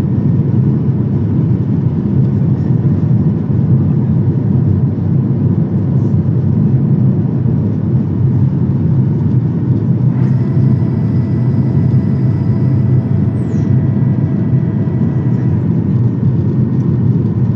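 Steady cabin roar of a Boeing 737-800 in the climb after takeoff, heard from a window seat over the wing: the CFM56-7B engines and the airflow make a deep, even rumble. About ten seconds in, a thin high whine joins for about five seconds, then stops.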